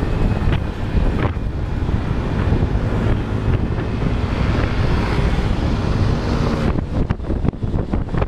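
Wind rushing over the microphone and a motorcycle running at road speed, a dense steady rumble. Near the end, music starts to come through with a regular beat.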